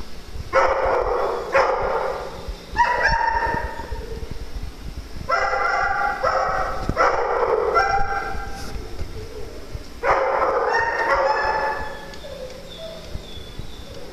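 A dog barking: about six drawn-out barks, some in quick pairs, with short pauses between them.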